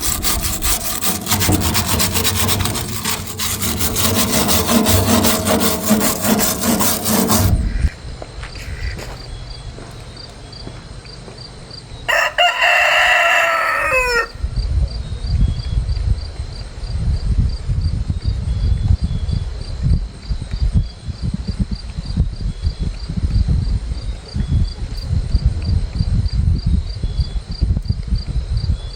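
A rooster crows once, about twelve seconds in, a call of about two seconds that drops in pitch at the end. Before it, a loud, even rushing noise fills the first seven seconds or so and cuts off suddenly; after it, a low, uneven rumble goes on.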